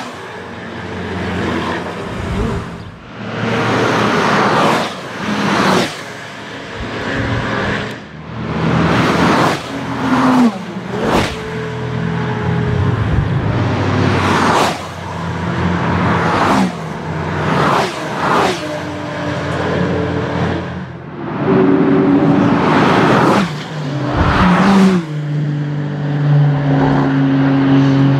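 Track-driven sports cars passing one after another at high speed under hard throttle, each engine swelling and fading as it goes by, some with a clear drop in pitch as they pass. Near the end a steadier engine note holds.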